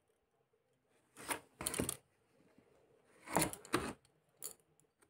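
A paper user manual rustling as it is handled: two bursts of about a second each, then a shorter rustle near the end.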